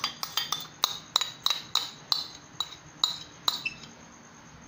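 Metal spoon tapping and scraping on a plate to knock oyster sauce off into a glass blender jug: a quick run of about a dozen ringing clinks, roughly three a second, that stops a little before the end.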